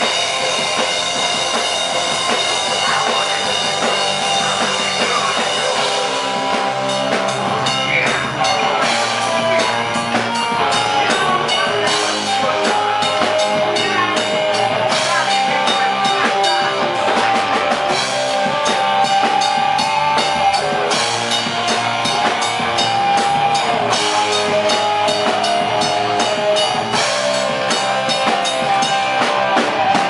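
Live rock band playing: electric guitar over a full drum kit with bass drum. The drumming gets busier and the band a little louder about six seconds in.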